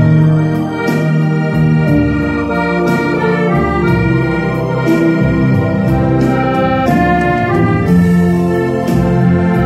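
Piano accordion playing a slow melody of held notes over bass notes.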